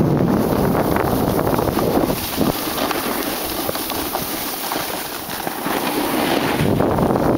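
Wind buffeting the microphone of a camera carried by a moving snowboarder, mixed with the hiss and scrape of a snowboard sliding over packed snow. Steady noise that eases slightly around five seconds in.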